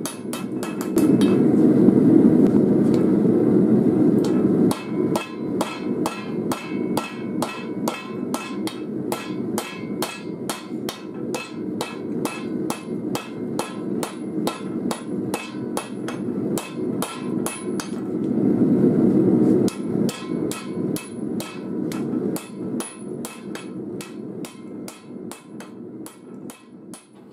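Hand hammer forging a red-hot knife blade made from a steel file on an anvil: steady strikes about three a second, each with a bright metallic ring. A louder steady rushing noise comes in twice under the strikes, for about four seconds near the start and about two seconds later on.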